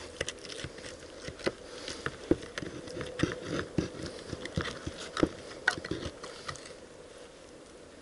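Hammer knocking and prying at a split animal skull on a board: irregular sharp knocks, several a second, that die away about six and a half seconds in.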